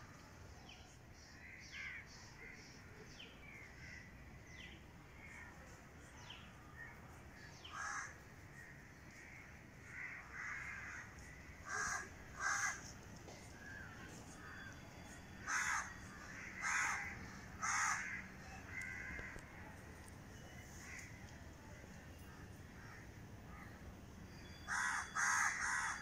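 Birds calling: a constant scatter of small high chirps, with louder short calls breaking in now and then, twice about 12 seconds in, three times between about 15 and 18 seconds, and in a quick run near the end.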